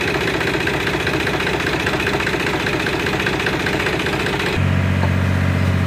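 Tractor diesel engine running while it pulls a trolley loaded with sand through soft sand. About three-quarters of the way through, the sound cuts abruptly to a steadier, deeper engine hum.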